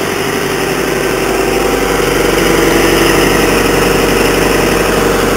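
Vermeer SC60TX stump grinder's engine idling steadily, growing a little louder about two seconds in.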